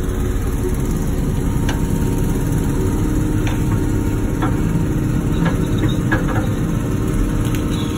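Wacker Neuson ET145 excavator's diesel engine running steadily while it works, with a few short, light clicks and knocks scattered through.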